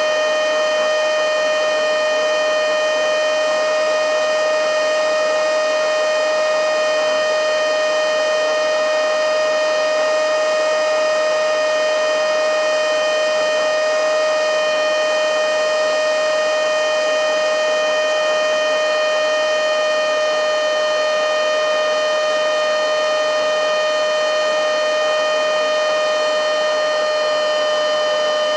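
Battery-powered mini handheld blowing/sucking vacuum cleaner running flat out: a loud, steady high-pitched motor whine over rushing air.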